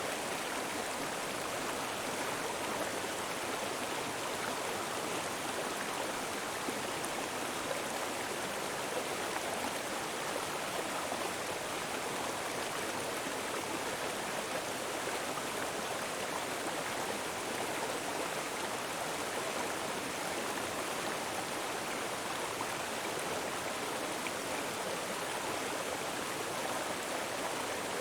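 Small mountain river rushing over boulders: a steady, unbroken splashing flow.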